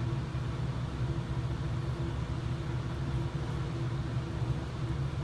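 Steady low machine hum with no distinct events.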